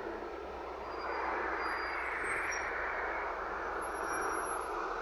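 LiAZ 5292.67 city bus pulling away from a stop and driving off, its engine and tyres making a steady rushing noise.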